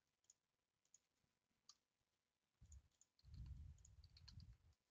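Near silence with faint, scattered computer mouse clicks. A low, muffled rumble comes in twice, briefly just before three seconds in and then for about a second and a half.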